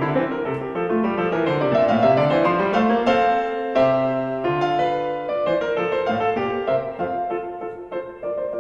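Piano music, with runs of notes moving down and back up the keyboard.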